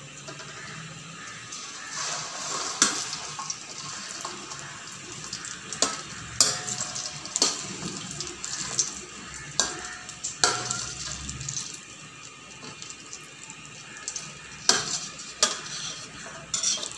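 Goat brains sizzling in hot oil in a stainless-steel kadai, a steady hiss, with a perforated metal skimmer clinking against the pan several times as they are turned.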